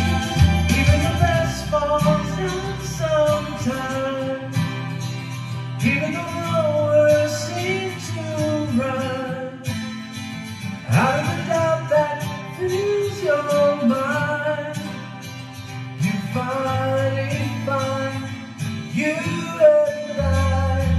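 A man singing while strumming a twelve-string acoustic guitar, with the voice carrying a melody over steady chords.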